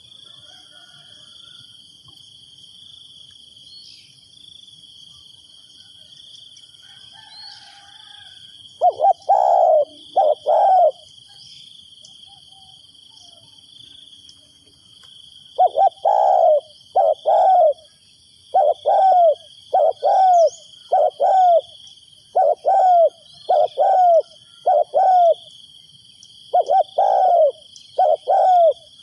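Spotted dove cooing: two coos about nine seconds in, then a long run of repeated coos from about sixteen seconds on. This is a decoy bird calling to lure wild doves. Insects trill steadily and high in the background.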